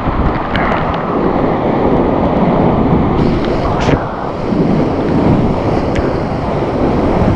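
Flooded whitewater rapids rushing loud and steady around a kayak, the river in high spate, with water splashing over the boat and the camera and a few sharp clicks.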